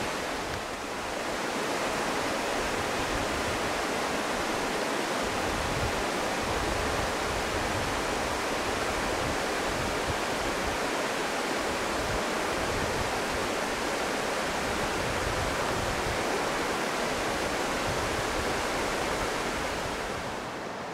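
Shallow river water rushing steadily over rocky riffles and a low stony ledge, easing slightly near the end.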